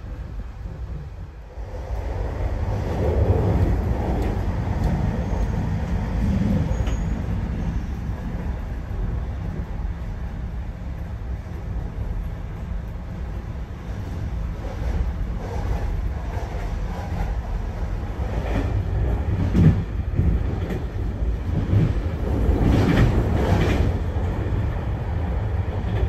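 Loco-hauled passenger coach running at speed, heard from inside: a steady rumble of wheels on rails. It is quieter for the first second and a half, then louder. Scattered clicks and knocks come from the wheels over rail joints and points, thickest near the end as the train runs through a station yard.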